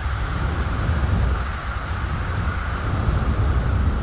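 Steady wind: a deep rumble with a hiss over it, even throughout.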